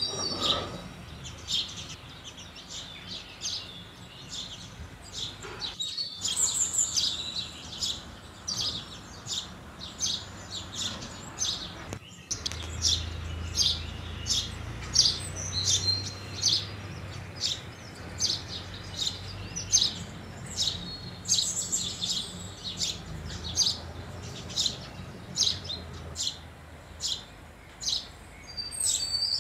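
House sparrows chirping: short, repeated cheeps, about one or two a second, cutting out briefly twice.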